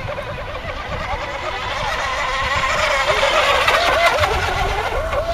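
Radio-controlled hydroplane boat's motor running out on the water, a whine that wavers rapidly up and down in pitch and grows louder about halfway through. Low rumbling noise lies underneath.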